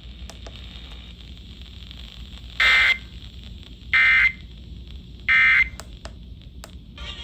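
Three short bursts of Emergency Alert System SAME data tones, the end-of-message code, starting about two and a half seconds in and a little over a second apart, each a buzzy electronic warble. They mark the end of the relayed severe thunderstorm warning.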